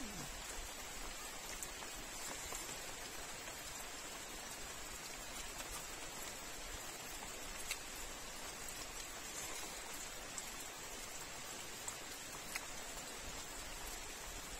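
Steady rain hiss with a few faint clicks scattered through it.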